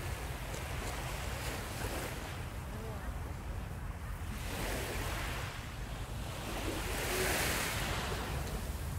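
Sea surf washing onto a sandy beach, swelling and fading every few seconds and loudest near the end, over a steady low rumble of wind on the microphone.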